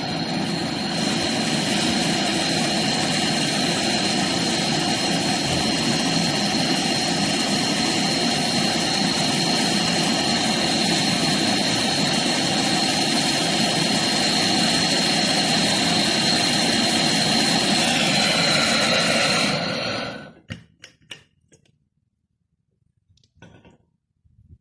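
MAPP gas torch burning with a steady hiss and a faint high whistle while brazing an access valve onto a refrigerator's tubing; the flame is shut off about twenty seconds in, leaving a few faint clicks.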